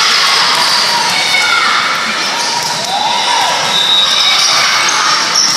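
Crowd of players and spectators shouting and cheering, echoing in a large gymnasium during a volleyball rally.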